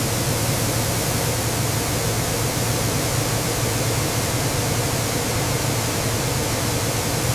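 Steady rushing industrial machine noise with a low hum underneath, cutting off suddenly at the end.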